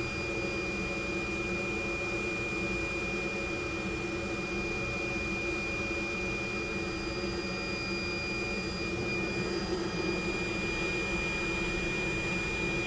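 Steady whir of a hot-air rework blower heating a chip's solder balls until they melt and reflow, with a constant high whine over the air noise.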